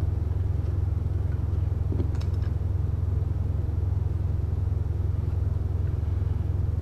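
Steady low hum with faint handling clicks about two seconds in.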